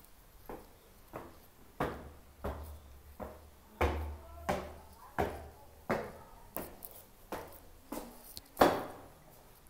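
Footsteps on stairs in an echoing stairwell: a steady walking pace of about three steps every two seconds, each step a sharp knock with a short echo, one step louder near the end.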